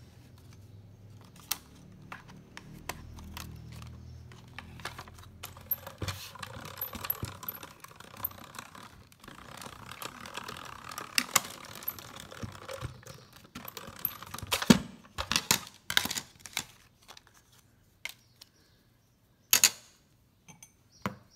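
Small hand-cranked die-cutting machine being cranked, the plate sandwich with a metal die rolling through it with a steady rolling noise and clicks for about ten seconds. Then comes a string of sharp clicks and taps as the die and plates are handled.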